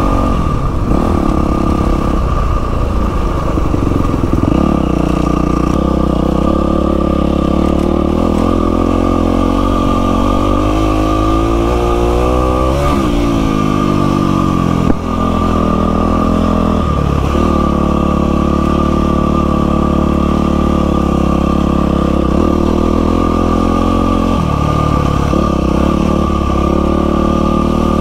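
Yamaha WR450F's single-cylinder four-stroke engine pulling along a dirt track, its revs rising and falling again and again with throttle and gear changes. A single sharp knock about halfway through.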